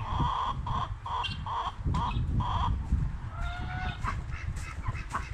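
Domestic geese honking, a quick run of about seven honks in under three seconds, then a single drawn-out gliding call a little past halfway, over a low rumble.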